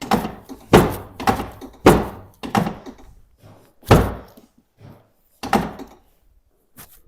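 About seven heavy thunks at irregular intervals, each dying away within a fraction of a second, from the chiropractic treatment table as adjustments are delivered.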